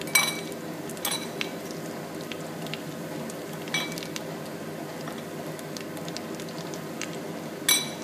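Breaded potato balls deep-frying in hot oil in a steel pot: a steady bubbling sizzle with fine crackles. Four sharp ringing metallic clinks come through it: one right at the start, one about a second in, one near four seconds and one near the end.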